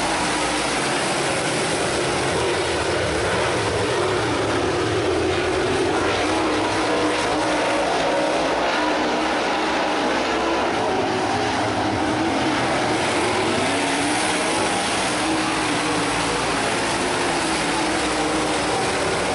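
A field of dirt-track super late model race cars running together, their V8 engines making several pitches that rise and fall as the cars circle the track.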